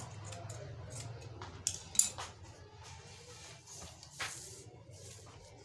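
Scissors cutting cloth: a few sharp snips, the loudest about two seconds in, and a longer rasping cut about four seconds in.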